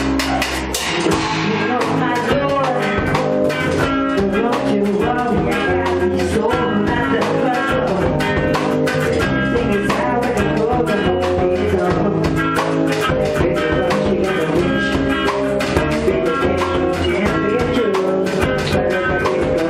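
Amateur rock band playing live in a small room: electric guitars over a drum kit, with a singer on a microphone.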